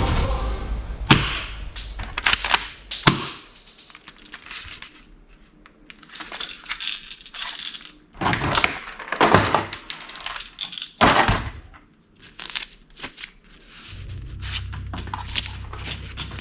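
Irregular sharp knocks, clicks and crackling rattles, the loudest about 1, 3, 9 and 11 seconds in. Music fades out at the start, and a low steady hum comes in near the end.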